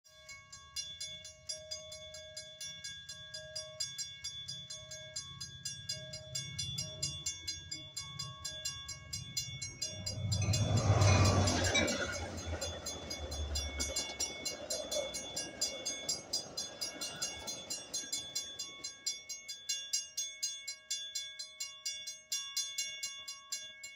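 Railroad crossing bell ringing in a fast, steady rhythm as a Metra commuter train passes through the crossing. The train's rumble and clatter swell up about ten seconds in, are loudest around eleven to twelve seconds, and fade away by about eighteen seconds while the bell keeps ringing.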